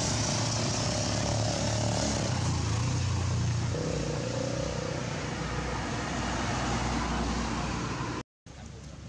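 A motor vehicle's engine running close by: a steady rushing noise over a low hum, with a faint engine tone that settles slightly lower partway through.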